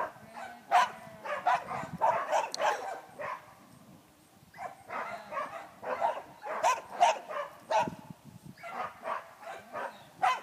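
Dog barking over and over, several barks a second, with a short break about four seconds in before the barking picks up again.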